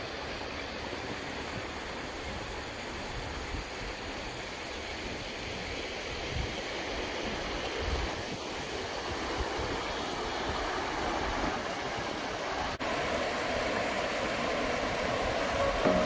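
Wind rumbling on the microphone over a steady outdoor hiss. About thirteen seconds in there is an abrupt cut to louder water rushing over rocks down a shallow channel.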